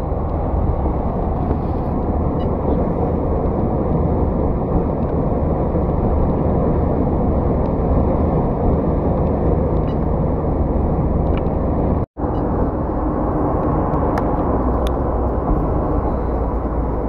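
Steady road and engine noise inside a taxi's cabin at highway speed, a low even roar. It drops out for an instant about twelve seconds in, then carries on.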